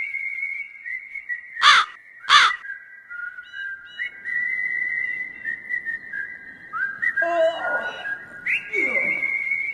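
Steady high whistling tones that glide up and hold, with two loud, short harsh calls about two seconds in. Near the end comes a man's groan as he stretches awake.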